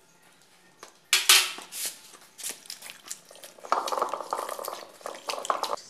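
Metal spoon stirring a runny egg mixture in a steel kadai, scraping and clinking against the pan: one loud scrape about a second in, then a quick run of clinks near the end.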